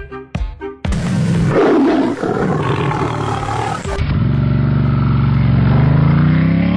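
A loud animal-like roar or growl, cut in as two clips. The second clip rises steadily in pitch for about three seconds.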